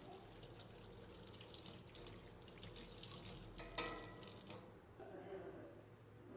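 Water running from a kitchen tap into a sink during dishwashing, with a single knock that rings briefly near the middle; the running water cuts off suddenly a little past halfway.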